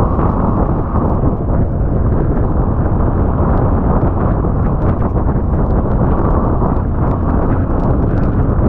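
Yamaha Serow single-cylinder four-stroke dual-sport bike riding along rutted wet beach sand, its engine running under heavy wind buffeting on the microphone, with scattered small ticks.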